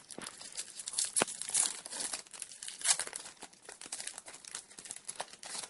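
Foil trading-card pack wrapper crinkling and tearing as it is handled and opened, a dense run of irregular crackles with a few sharper peaks.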